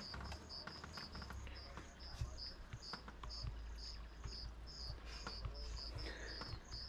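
Insects, crickets by the sound of it, chirping in a quick, steady pulse of short high chirps, about four a second, over a low rumble.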